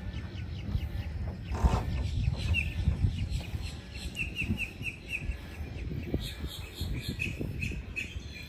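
Wetland birds calling, with runs of short high chirps about four a second in the middle and again near the end. A low rumble runs underneath, and there is a louder thump a little under two seconds in.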